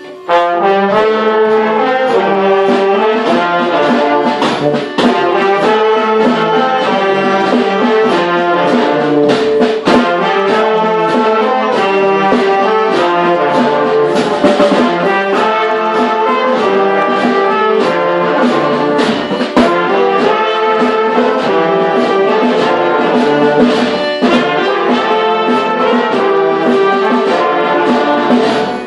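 Brass street band playing a cumbia tune together: trumpets and trombones carry the melody and parts over drum hits in a steady beat. The whole band comes in at once just after the start.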